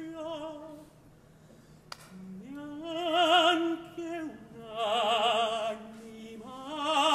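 Male opera voice singing long held notes with wide vibrato. One note fades out about a second in, then after a short pause come three long sung phrases separated by brief breaths.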